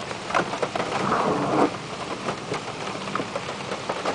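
Cabin noise of an SUV driving slowly over a wet, rough dirt trail: a steady low engine hum under a crackling noise with scattered small clicks and knocks, louder for a moment about a second in.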